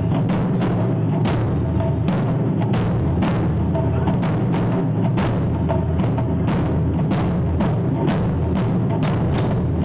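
Taiko ensemble drumming in unison: a row of chū-daiko barrel drums on slanted stands struck with wooden bachi sticks. A steady, rapid run of heavy, booming strokes with no break.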